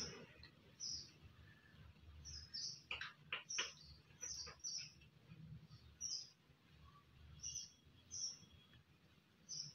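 A small bird chirping: short, high chirps repeated about once a second. A few soft clicks come about three seconds in.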